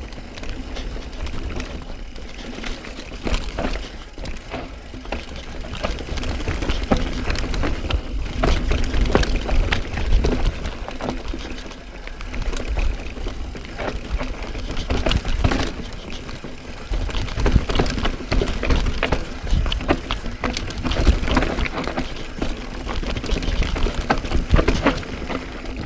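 Downhill mountain bike riding over a rough dirt trail: tyres rumbling on dirt and roots, the bike rattling with many sharp knocks from bumps, and wind buffeting the microphone, swelling and easing with speed.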